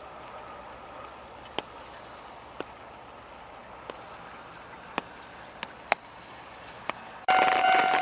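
Faint background hum with a few scattered sharp clicks, then about seven seconds in a Japanese railway level-crossing alarm suddenly starts ringing loudly, its electronic bell tones warning of an approaching train.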